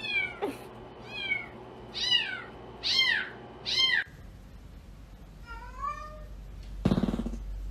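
A kitten mewing over and over: high, short mews that fall in pitch, about one a second. After a break a cat meows lower, and near the end there is a louder, rougher cat call.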